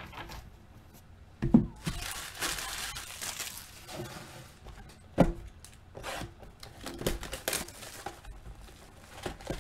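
Foil trading-card pack wrappers crinkling and being torn open, with two sharp knocks on the table, one about a second and a half in and another about five seconds in.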